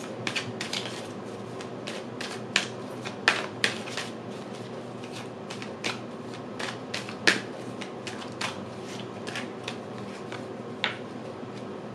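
A deck of tarot cards being shuffled by hand: an irregular run of soft clicks and taps as the cards slide and knock together, with a few sharper ones scattered through.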